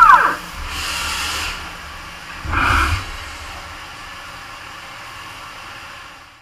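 Horizontal CNC machining center inside its enclosure: a spindle whine falls in pitch right at the start as the spindle slows. Then come two short bursts of hissing spray, about a second in and again near three seconds, and a steady hiss that fades out near the end.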